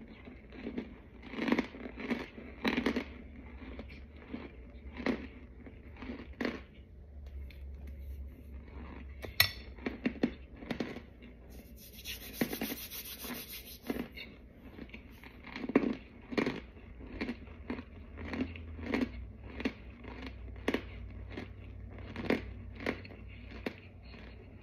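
Crunching and chewing of packed chunks of white powder, in short irregular crunches about one to two a second. There is a sharp click about 9 seconds in and a brief high hiss a little past halfway.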